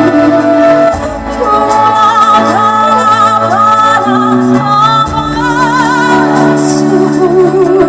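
A singer's melody with wide vibrato on held notes, over a band's steady accompaniment.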